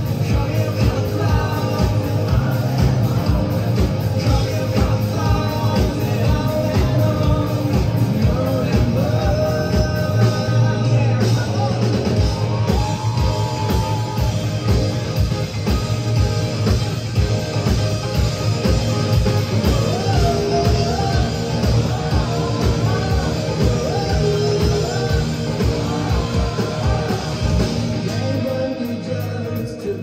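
A rock band playing live, with a lead singer over a steady drum beat.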